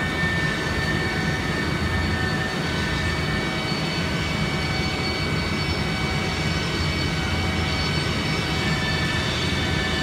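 Freight train of tank cars rolling by: a steady low rumble of wheels on rail, with several faint, thin high tones held over it.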